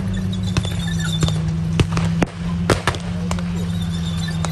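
Tank engine running steadily as the tracked armoured vehicle drives past, with irregular sharp cracks of blank small-arms fire, about ten shots.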